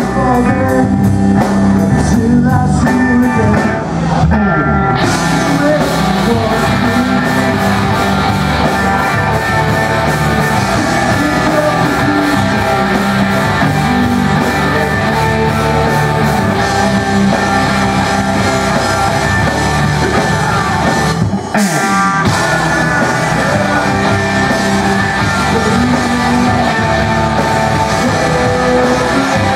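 Live pop-punk band playing loud: distorted electric guitars, electric bass and a drum kit, with sung vocals. About two-thirds of the way through the band stops for a moment and comes back in with a cymbal crash.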